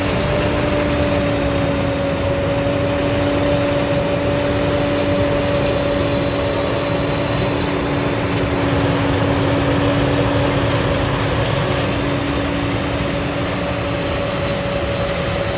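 Combine harvester running steadily while cutting soybeans: an unbroken rush of machine noise with a steady two-note hum and a faint high whine over it.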